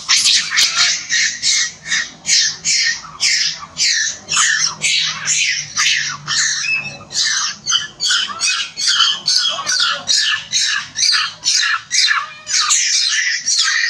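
Juvenile long-tailed macaque screaming in distress while a larger macaque grips and holds it down: shrill, loud screams, about two a second without a break, stopping suddenly at the end.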